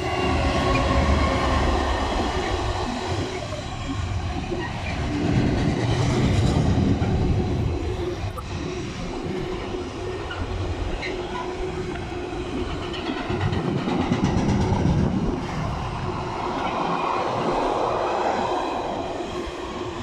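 Diesel-hauled container freight train passing close by: the locomotive goes past at the start, then a long run of container wagons keeps rolling by with a continuous low rumble of wheels on the rails that swells and eases.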